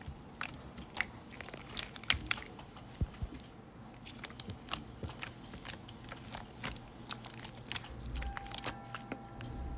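Fingers poking and squishing thick green slime, giving a run of irregular sharp wet clicks and pops.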